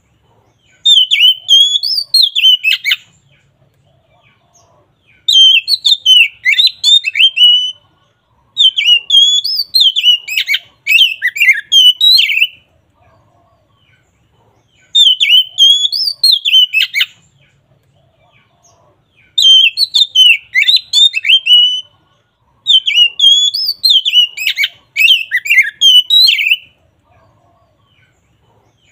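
Oriental magpie-robin singing its full, loud 'ngeplong' song: six phrases of rapid whistled and chattering notes, each two to four seconds long, separated by short pauses.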